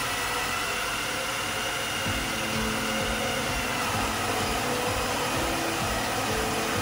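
A cordless stick vacuum running steadily right beside an electric drill boring a hole through an MDF tabletop, catching the chips as they come off. The drill's tone shifts about two seconds in.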